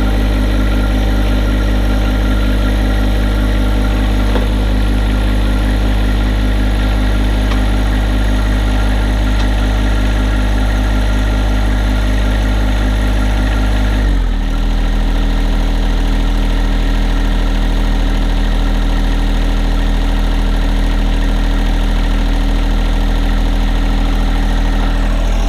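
John Deere 1025R's three-cylinder diesel engine running steadily at raised revs, then dropping suddenly to a lower, steady speed about halfway through.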